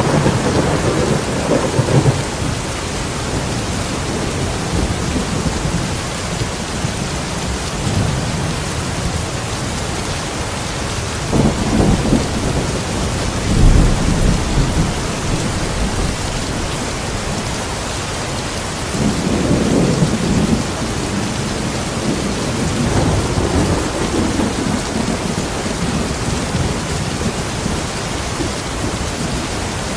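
Steady, heavy rain with rolls of thunder rumbling in every several seconds, the loudest about halfway through.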